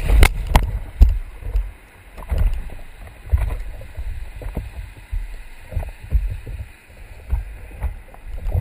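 Whitewater splashing over a bodyboard-mounted action camera as a wave washes across it in the first second, then water slapping and sloshing against the board and camera housing in irregular low thumps.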